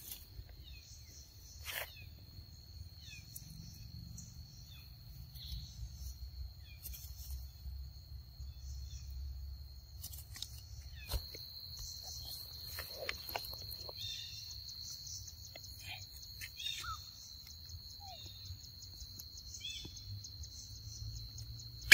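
Outdoor ambience: a steady high insect trill that grows louder about halfway through, with a few short high chirps scattered over it and a low rumble underneath.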